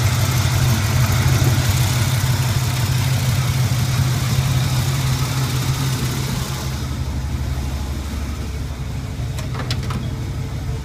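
Pontiac 301 turbo V8 of a 1981 Turbo Trans Am idling roughly on a cold start, with a high hiss over the engine hum that drops away about seven seconds in. A few faint clicks come near the end.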